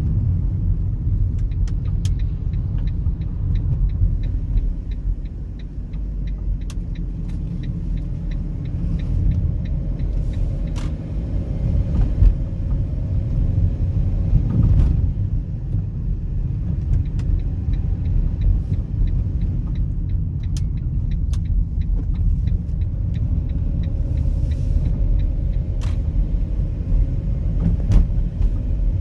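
Fiat Doblo 263 driving with steady road rumble, broken by irregular sharp rattles and clunks from the front suspension. The noise persists after new drop links were fitted, and no play has been found in the ball joints or steering rack.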